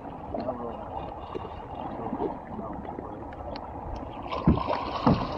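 Steady noise of a fishing boat on open water, a rush of water and motor, with two heavy thumps near the end, about half a second apart.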